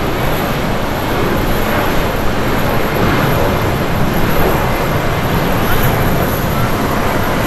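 Embraer E190's twin turbofan engines at takeoff thrust: a loud, steady jet roar through the takeoff roll and liftoff.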